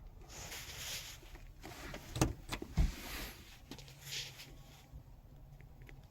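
Rustling and handling noise in bursts, with two sharp knocks about half a second apart a little past two seconds in.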